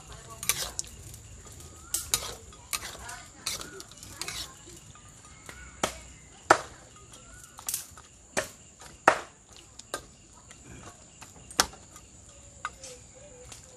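Metal spatula stirring and scraping a thick soy-sauce braise of python pieces in a steel wok, clinking against the pan at irregular intervals.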